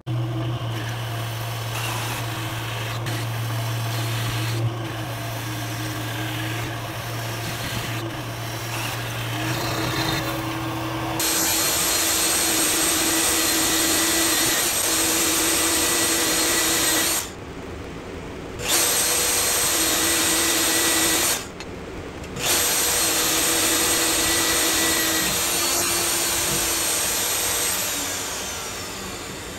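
Drill press running and drilling into a metal plate, a steady motor sound with the bit cutting. For about the first third a different, deeper steady hum is heard. Later the sound cuts away briefly twice.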